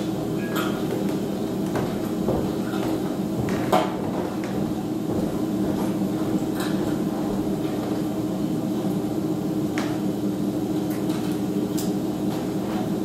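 A steady low hum, with a few faint scattered clicks and knocks, the sharpest about four seconds in.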